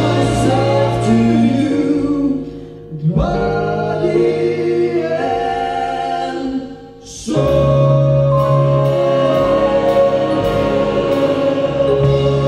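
A man and a woman singing a slow jazz ballad duet live with a big band behind them. The music thins out twice, about three and seven seconds in, then both voices and the band sustain long held notes.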